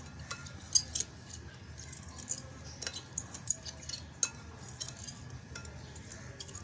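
Metal spoon stirring milk in a glass bowl, tapping and clinking against the glass at irregular moments.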